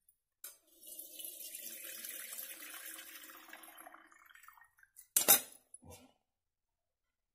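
Cooking water poured out of a pressure cooker through a perforated skimmer into a steel pot, splashing for about four seconds and tailing off. About five seconds in comes a single sharp clank of metal utensils, the loudest sound.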